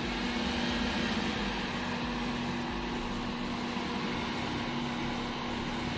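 Hyundai i20 hatchback's engine running as the car moves slowly past close by: a steady hum over an even noise.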